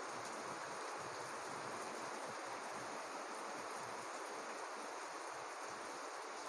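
Steady, low-level hiss of background room noise, with no distinct handling or box sounds standing out.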